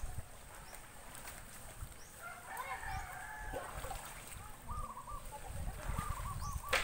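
Bird calls: one longer call about two seconds in, then shorter repeated calls near the end, over a low rumble, with a sharp click just before the end.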